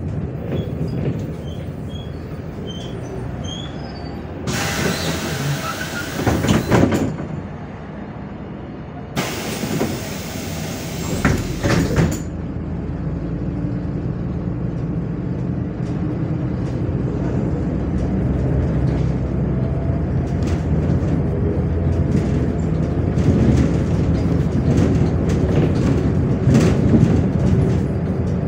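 MAZ 105.465 diesel city bus heard from inside the cabin: two loud bursts of hissing air a few seconds apart, then the engine running and slowly growing louder as the bus pulls away.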